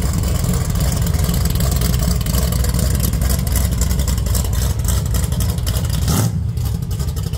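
Classic Chevrolet Chevelle muscle car's engine, a loud, deep, steady rumble as the car rolls slowly past.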